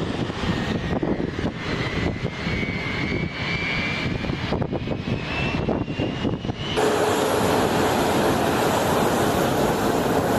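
Jet aircraft engine noise: a rumble with a whine that rises in pitch for about seven seconds, then an abrupt change to a steadier, denser hiss with a constant hum.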